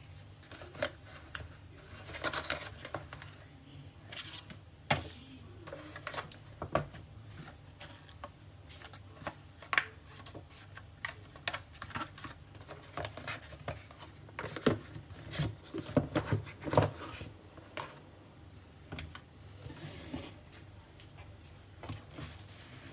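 Hands handling the rigid cardboard packaging of a phone's presentation box: scattered light taps, knocks and rustles as a cloth pouch, a red box and the inner tray are lifted and moved, over a low steady hum.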